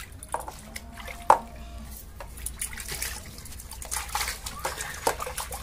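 Water splashing and dripping in a plastic baby bathtub as hands wash a baby: small irregular splashes, with a louder one about a second in.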